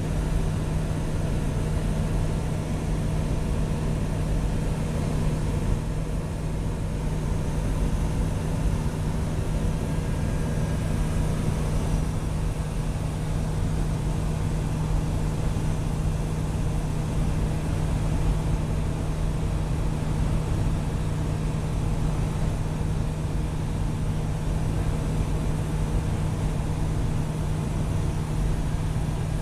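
Light single-engine propeller aircraft's engine and propeller running steadily in flight, a constant low hum with no change in pitch, heard inside the cockpit.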